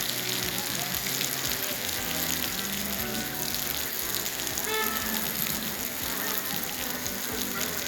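Heavy rain falling in a city street, a steady dense hiss.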